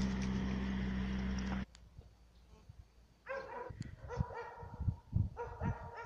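A loud steady hum stops abruptly about a second and a half in. From about halfway on, a small dog gives a run of short, high yips and whines.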